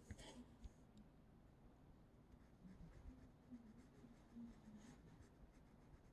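Near silence, with the faint scratch of a fine-liner pen nib on paper as small strokes are coloured in.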